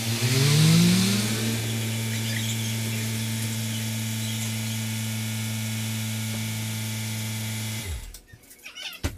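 Car engine idling with a steady hum after the portable air compressor has been shut off. The hum rises in pitch over the first second or so, holds, then dies away with a falling pitch near the end as the engine is switched off. A single knock follows just before the end.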